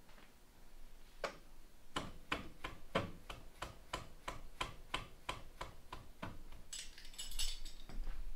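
Ratchet wrench clicking steadily, about three clicks a second for some five seconds, followed by a brief high hiss near the end.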